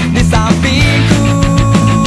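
Loud rock music with drums and a melody line.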